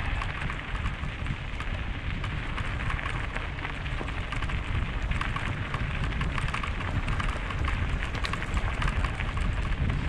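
Tyres of an e-mountain bike crunching over a gravel dirt track, with wind buffeting the microphone as it rides.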